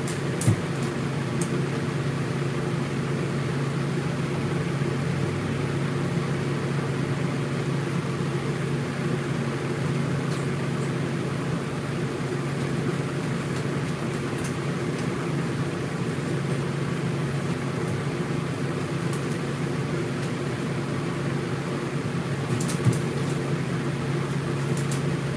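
Steady electric motor hum with a rushing noise over it, running at an even level, with a few light clicks near the end.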